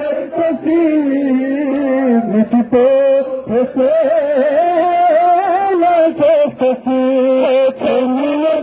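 Male voices chanting a noha, a Shia mourning lament, in one slow melodic line held in long notes. A few sharp slaps of hands striking chests in matam come through now and then.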